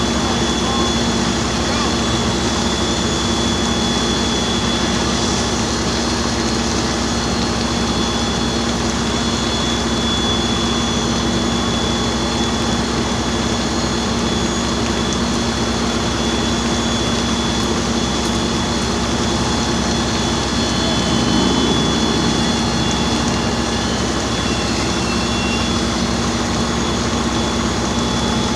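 Fire engine's diesel engine and pump running steadily under load, supplying a charged hose line and a master stream: a constant loud drone with a thin, steady high whine over it.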